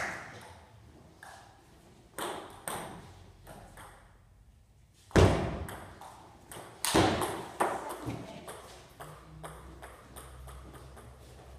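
Table tennis ball clicking off bats and the table, each hit echoing round the hall. A few scattered clicks first, then a quick run of hits about five seconds in that starts with the loudest one.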